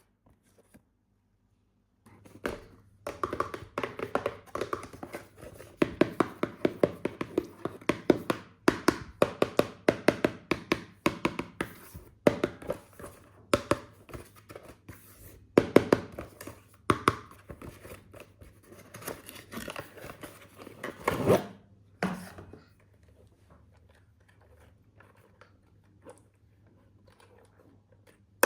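Hands unpacking toy packaging: a dense run of crackling, rustling and tearing with quick clicks, ending with a louder burst a little after two-thirds of the way in, then only faint occasional handling sounds.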